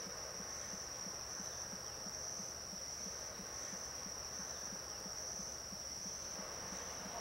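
Insect chorus: one continuous, steady high trill. Underneath it, a soft low pulse repeats about three to four times a second.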